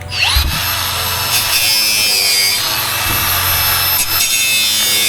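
Angle grinder starting up with a rising whine, then running at full speed; its pitch sags briefly about two seconds in.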